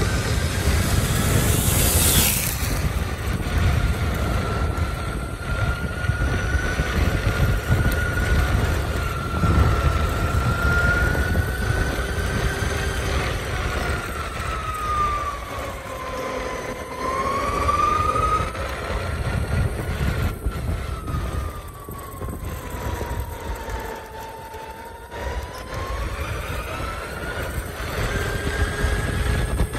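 Lacroix Lonestar Supersport's electric drive motor whining as it climbs, its pitch sliding down and back up with speed twice, over steady wind and wheel rumble.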